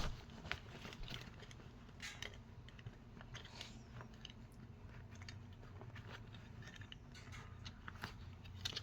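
Scattered small clicks, taps and crinkles from objects being handled close by, over a faint steady low hum.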